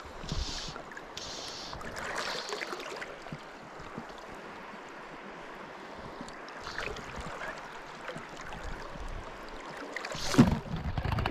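Steady rush of river water around a wading angler, with a sudden loud bump about ten seconds in.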